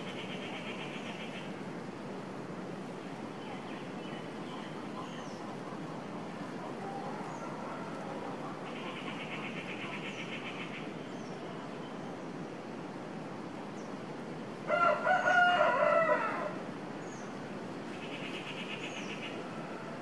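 A rooster crows once, about fifteen seconds in, for just under two seconds; it is the loudest sound. Over a steady outdoor background, a buzzy rapid trill comes three times and faint high chirps come now and then.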